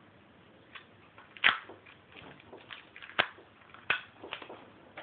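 X-Acto knife tip clicking and scraping against a powder-coated brake caliper while trimming masking tape: a string of sharp clicks, the loudest about one and a half seconds in.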